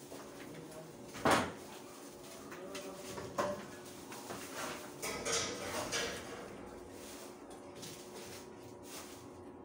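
A few sharp knocks and clatters from work on a steel stair railing, the loudest about a second in and another a couple of seconds later.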